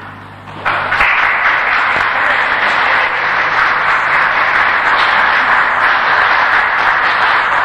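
Audience applauding, the clapping building about a second in and then holding steady, with a faint steady low hum underneath.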